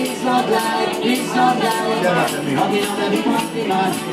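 Live acoustic band: a man singing lead into a microphone over strummed ukulele and acoustic guitars, with a steady upbeat rhythm.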